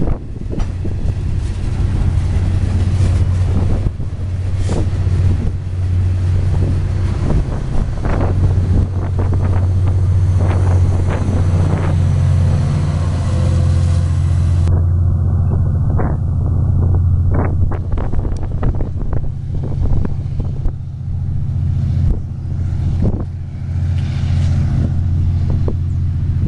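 Freight train rolling past: a steady low rumble with many irregular clanks and clicks from the wheels and cars.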